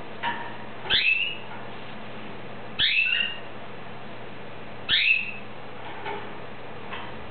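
Caged domestic canary giving a short call three times, about every two seconds: each a quick rising sweep that levels off into a brief high note, with faint chirps in between.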